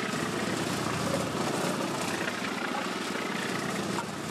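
A small engine running steadily with a fast, even pulsing.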